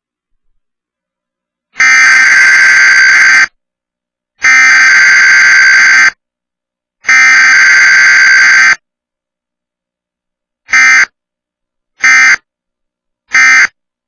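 Emergency Alert System Required Weekly Test sending its SAME data tones: three loud header bursts of about a second and a half each, then three short end-of-message bursts about a second apart. As is usual for a weekly test, there is no attention tone and no voice message.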